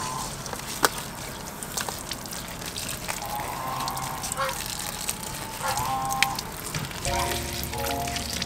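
Water running from a garden tap and splashing onto leaves held under it as they are rinsed, with scattered drips and splashes. Music plays underneath, its notes coming in more steadily near the end.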